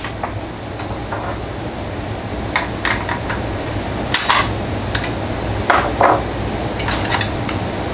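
Scattered sharp metallic clicks and clinks of a small hand tool and fittings against the metal parts of a DeWalt DCS361 sliding miter saw as its screws are adjusted. They start about two and a half seconds in, and one clink about four seconds in rings briefly. A steady low hum runs underneath.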